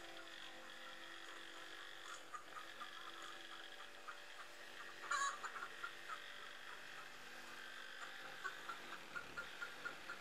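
Corded electric jigsaw cutting a curve through plywood, heard faintly as a steady motor buzz with small ticks from the blade, dying away near the end.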